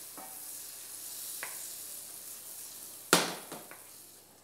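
Butter sizzling as it foams in a hot stainless steel frying pan, stirred with a wooden spoon, heating up to sear a pork roll. About three seconds in comes one sharp knock, the loudest sound, and the sizzle fades away after it.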